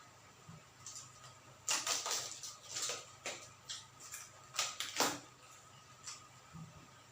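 Close-up crunching and chewing of crisp, dry-fried quail: a run of irregular sharp crunches, loudest between about two and five seconds in.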